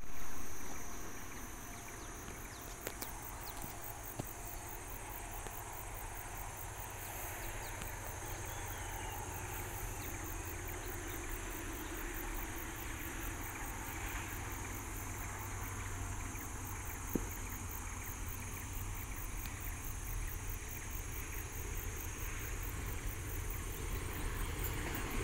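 Faint, steady low rumble of a diesel freight train approaching from a distance, slowly growing louder, with a few small clicks. It starts with a brief louder swell.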